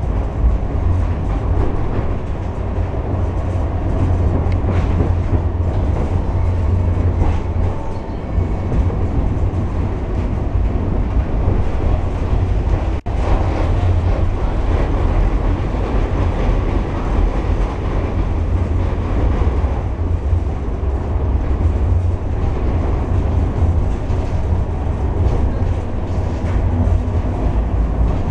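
Interior of a Ganz KCSV6 tram under way: a steady, deep rumble of the running tram. The sound drops out for an instant about thirteen seconds in.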